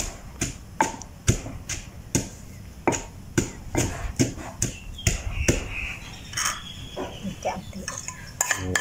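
A pestle pounding Khmer kroeung herb paste in a heavy stone mortar: a steady run of dull thuds, about two to three a second, that stops about five and a half seconds in.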